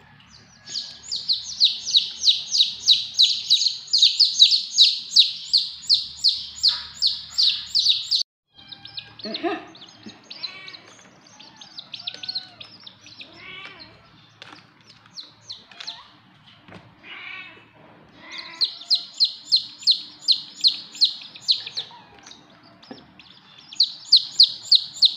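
A group of baby chicken chicks peeping loudly and rapidly, several high peeps a second. The run breaks off abruptly about a third of the way through and gives way to softer, more varied chirps. Loud runs of peeping return twice near the end.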